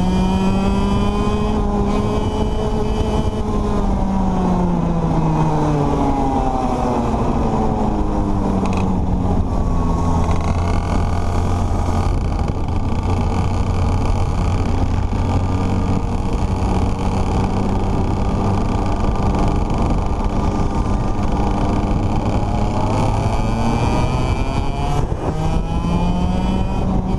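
Racing kart engine heard on board at speed. Its pitch drops over several seconds from about four seconds in as the revs fall, holds low and steady through the middle, and climbs again near the end as the kart accelerates.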